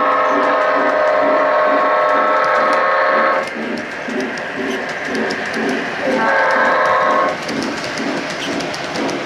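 Electronic sound system of an O-gauge MTH BNSF Dash 9 diesel model locomotive sounding its chord horn: a long blast that ends about three and a half seconds in, then a shorter blast about six seconds in. Under the horn runs the steady rhythmic rumble and clicking of the model train's wheels on the track.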